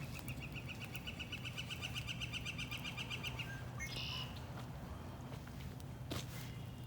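A small songbird sings a rapid trill of repeated notes, all at one pitch, for about three and a half seconds. A short, higher call follows about four seconds in, over a faint steady low hum.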